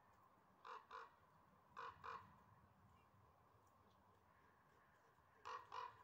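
A crow cawing faintly in three quick double caws, the first pair under a second in, the second about two seconds in, the last near the end.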